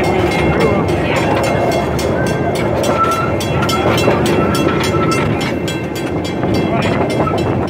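Small tourist train running, heard from an open passenger car: a steady rumble of the wheels and cars, with a thin high squeal coming and going from about two seconds in, and a regular ticking about four times a second.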